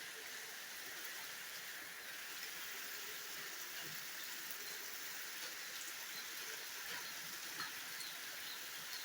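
Steady rushing hiss of a waterfall, with a few faint short chirps or ticks over it.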